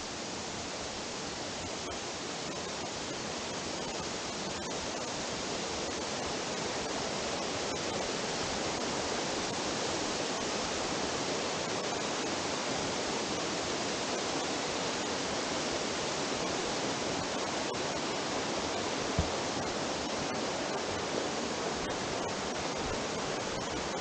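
Steady rushing of a small waterfall cascading over rocks into a pool. One short low thump about three-quarters of the way through.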